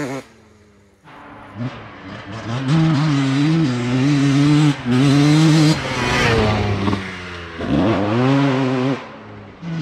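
Honda CR250R two-stroke single-cylinder engine on a three-wheeler trike, revving hard under load. The note rises and falls with the throttle and gear changes. It is faint for the first second, then comes in strongly, and near the end it drops sharply and climbs again.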